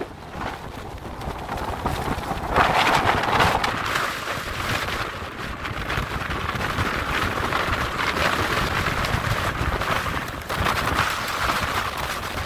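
Heavy storm surf breaking and washing over a cobble beach, mixed with strong wind buffeting the microphone. There is a louder surge about two and a half seconds in, and smaller swells after it.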